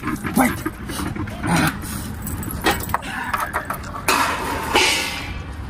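Steel plates and utensils clinking and clattering in short irregular knocks, with a longer rush of noise about four seconds in.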